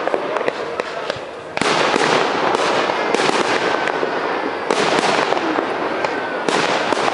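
Fireworks display: aerial shells bursting with dense, continuous crackling, with fresh surges of bursts about a second and a half in and again near five seconds. Recorded through a mediocre microphone.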